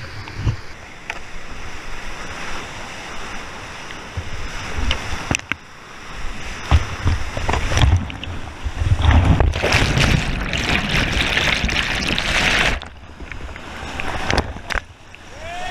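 Whitewater rushing and splashing around and over a kayak as it runs a rapid, with water and wind striking the boat-mounted microphone. The rushing grows loudest about two-thirds of the way in, then cuts off suddenly.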